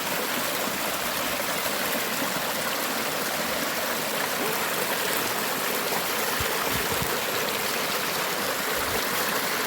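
Creek water running over stones in a steady rush.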